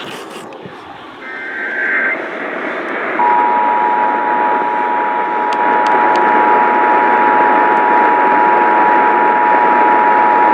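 Emergency Alert System attention signal over hissing radio reception: a steady two-tone alert starts about three seconds in and holds. About a second in, it is preceded by a short burst of the EAS digital header's data tones, announcing a test of the alert system.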